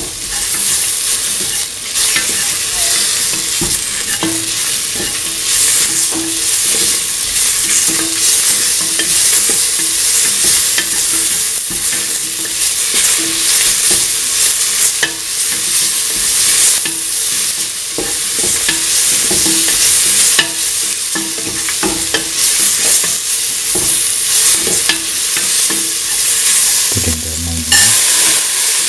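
Metal spatula stirring and scraping a stainless steel pan in strokes about once a second, while chopped onion, garlic, tomato, fennel seeds and dried red chillies sizzle steadily in hot oil. Near the end there is a short, louder, lower sound as soaked mung beans go into the pan.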